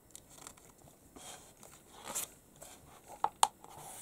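Glossy magazine page being turned and pressed flat by hand: soft paper rustling and swishes, with two sharp clicks in quick succession near the end.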